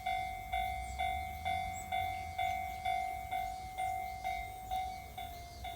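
Japanese level crossing alarm ringing, one clanging tone repeated about twice a second, over a low rumble.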